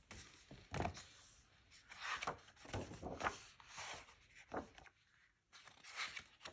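A hardcover picture book being opened and its stiff pages turned by hand: a thump as the cover falls open about a second in, then several short rustles and slides of paper.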